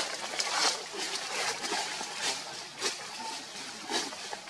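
Steady outdoor hiss with scattered short crackles and rustles, the loudest right at the start.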